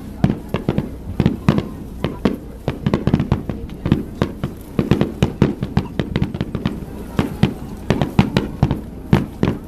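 Aerial fireworks going off in quick, irregular succession: many sharp bangs and crackles packed closely together, several a second.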